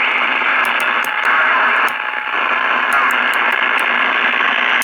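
Static hiss from a Bobcat 23 C CB radio's speaker, the receiver on with no station coming in. The hiss is steady and dips briefly about two seconds in.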